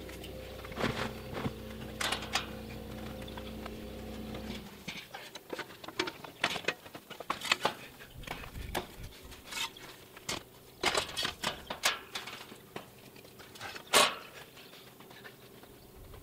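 Scattered knocks, clicks and scuffs of hands-on work in a wire-panel chicken run as a plastic storage tote is shifted and a hand truck is wheeled in and back out, with one sharp knock about fourteen seconds in. A steady low hum underneath stops abruptly about four and a half seconds in.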